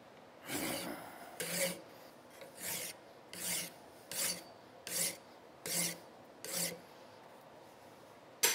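Hand file rasping across the metal backstrap of a revolver grip frame in eight even cross-filing strokes, about one every three-quarters of a second, thinning the oversized backstrap down toward the frame. A single short sharp click near the end.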